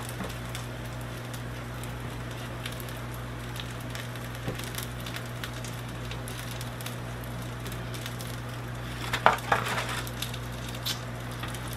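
Metal tongs clicking and scraping against the hot Ninja Foodi grill basket as freshly air-fried chicken wings are lifted out, with a faint sizzle from the hot wings over a steady low hum. A louder clatter of the tongs comes about nine seconds in.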